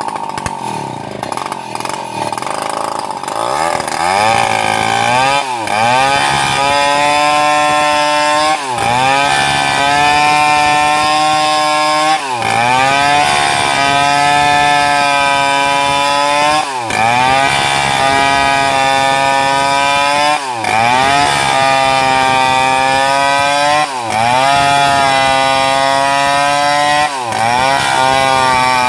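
Stihl 070 two-stroke chainsaw ripping lengthwise through a large sengon log, running at high revs under load. About every three to four seconds the engine note dips briefly and climbs back up. In the first few seconds it runs lower before coming up to full speed.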